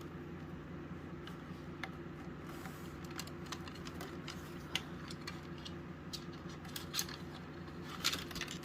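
Scattered light clicks and taps of a plastic smoke alarm being handled and opened, over a steady low hum.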